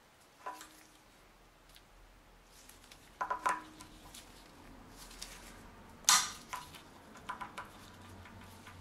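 Steel oil pump roller chain and sprocket of a BMW M52 engine clinking and rattling as they are handled and fitted onto the engine: a few short sharp metallic clinks with a brief ring, the loudest about six seconds in.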